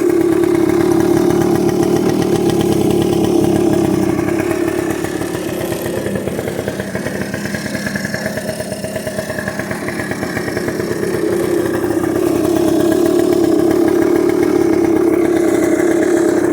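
2002 Arctic Cat 90 ATV's small two-stroke single-cylinder engine idling steadily. It turns a little quieter for several seconds in the middle, then comes back up.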